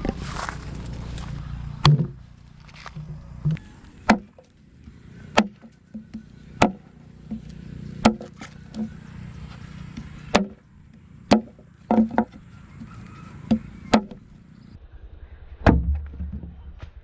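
A series of about a dozen sharp, short chopping strikes at uneven intervals of roughly a second, with little ringing after each. A low hum runs before the first strike and returns near the end.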